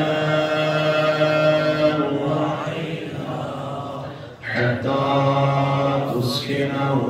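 A man chanting a recitation in long, drawn-out held notes, breaking off for breath about four and a half seconds in and then carrying on.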